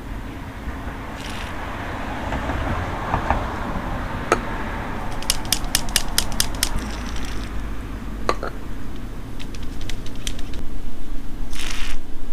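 Small sharp clicks and light scraping from hands working a motorcycle clutch cable while lubricating it, with a quick run of about ten clicks about five seconds in and a few more later.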